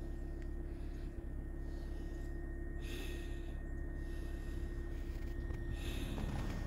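Slow breathing close to the microphone, a soft hiss that swells and fades every second or two, over a steady low rumble and a constant hum.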